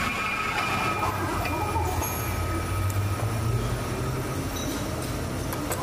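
Metal lathe running with steady machine noise and a low hum; a high whine fades out about a second in.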